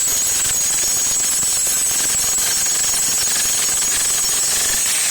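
Generic electric jackhammer of about 60 pounds running steadily at full power, its bit hammering rapidly into a concrete patio slab and knocking off a chunk.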